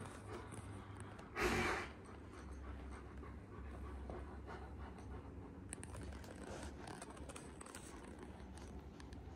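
Kangal dogs panting softly while lying at rest, with one louder breathy puff about a second and a half in.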